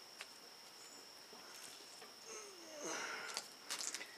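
Faint, steady high-pitched insect buzz, with faint rustling and light knocks of handling in the second half.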